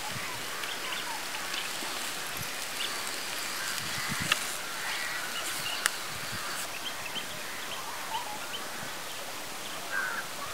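Outdoor ambience of birds calling, with many short chirps scattered throughout, and two sharp clicks about four and six seconds in.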